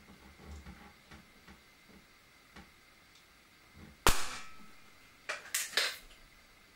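A .177 Webley Nemesis single-stroke pneumatic air pistol fires one shot, a sharp crack with a short ringing tail about four seconds in. About a second later comes a quick run of three or four sharp clicks.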